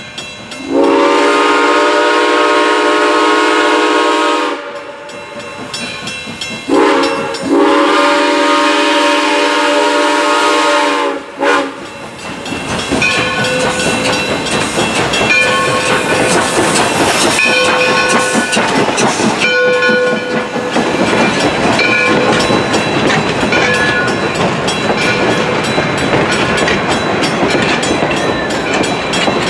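Black River and Western 2-8-0 steam locomotive No. 60 sounding its whistle for a grade crossing: a long blast, then a brief toot running straight into a second long blast. Then the locomotive and its passenger coaches pass close by, wheels clattering over the rails.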